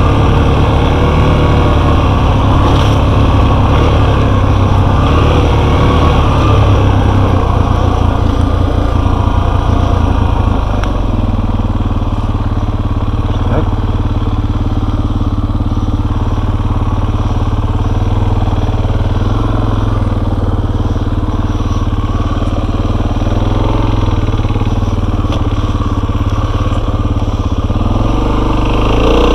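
Enduro motorcycle engine running while riding, revving up and down for the first ten seconds or so, then settling to a steadier, lower note, and picking up again near the end.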